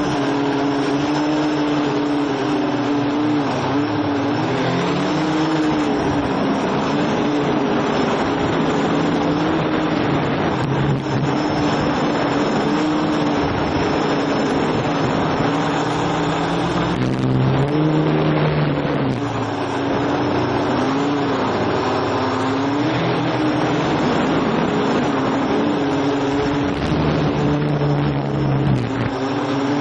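Quadcopter's electric motors and propellers whining close to the onboard camera, their pitch wavering up and down as motor speed changes, over a steady hiss of rushing air.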